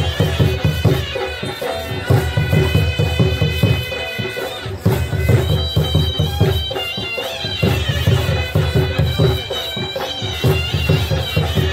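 Chhau dance accompaniment: a shehnai-type reed pipe plays a sustained, nasal melody over heavy, repeated drumbeats.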